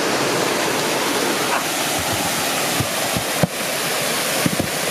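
Waterfall rushing steadily as white water pours over the rocks close below. A few brief low knocks break through it, the sharpest about three and a half seconds in.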